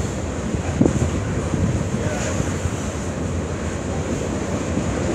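Freight train of tank cars rolling past on the rails, a steady rolling noise, with wind buffeting the microphone.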